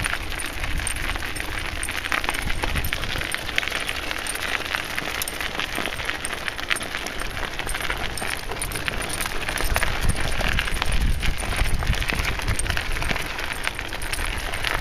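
Bicycle rolling along a gravel path with wind rumbling on the microphone, and small metallic jingles and clicks from the dog's harness ring and lead clip as the dog runs alongside.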